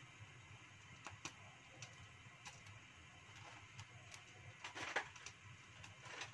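Cooking oil heating in a wok on a gas stove: faint, irregular ticks and pops, a little cluster of louder ones about five seconds in, over a low steady hum.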